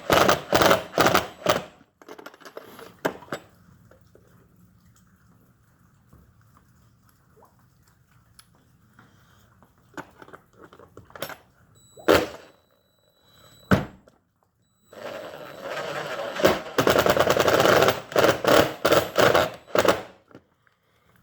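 Cordless drill driving screws to mount a door latch, run in short pulsed bursts at the start and again for about five seconds near the end. In the quieter stretch between come a few knocks and one sharp metallic clank that rings briefly.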